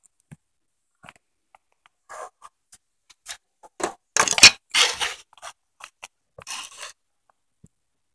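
Objects being handled and scraped close to the microphone: a run of short, irregular scrapes and clicks, loudest in two bursts about four and five seconds in.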